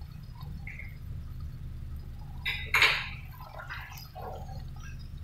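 Tomato sauce in a pot on the stove, with small drip-like plops over a steady low hum, and a short louder noise about three seconds in.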